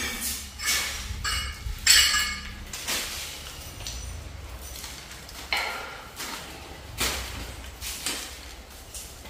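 Several sharp knocks and clinks at irregular intervals, some ringing briefly, the loudest about two seconds in.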